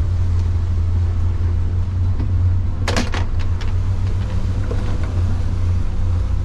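Boat's outboard motor running steadily underway, a low drone heard from inside the pilot house. About three seconds in comes a short cluster of clicks and knocks from the cabin door being handled.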